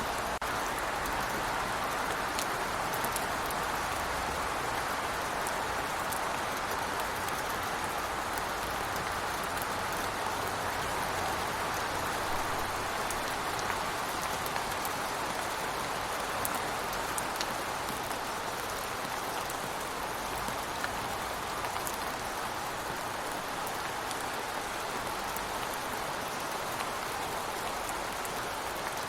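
Steady rain falling, an even hiss with scattered drop ticks, heard from by a window.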